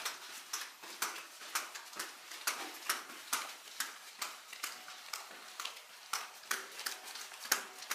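Footsteps of a person walking at a steady pace, about two steps a second, each step a short sharp click.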